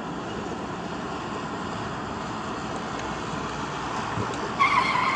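Plastic toy dump truck rolling over a dirt path, a steady rough rolling noise, with a brief wavering high squeal near the end.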